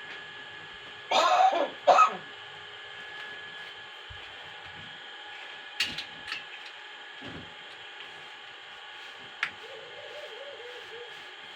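Pet hill myna imitating a human cough: two coughs about a second in, the first longer with several pulses, the second short. A few faint clicks follow, and a short, quiet warbling sound near the end.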